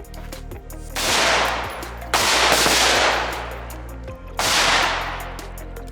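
AR-15 rifles fired on command: three loud shot reports, about a second in, two seconds in and past four seconds in, each with a long fading echo.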